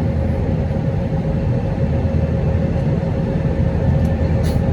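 Steady jet airliner cabin noise: a low rumble of engines and airflow heard from inside the cabin of an Airbus narrowbody in flight, with a constant hum running through it.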